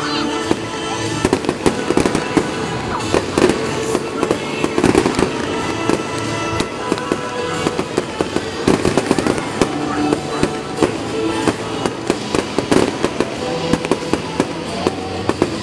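Aerial fireworks shells bursting and crackling in a rapid, continuous run of sharp bangs, with music playing underneath.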